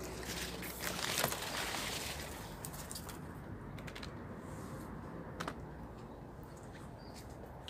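Leaves rustling and scattered light clicks and taps as lemons are picked from the tree and handled in a plastic crate, busiest in the first few seconds, then a single sharp click and a faint steady background.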